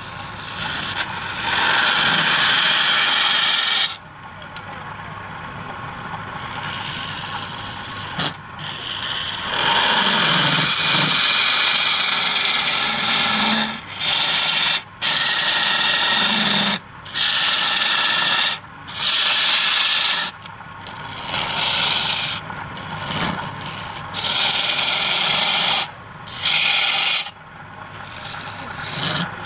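A flat steel scraper cutting into a wooden bowl spinning on a lathe: a harsh, rasping scrape of tool on wood. It comes in repeated passes, each broken off by short pauses.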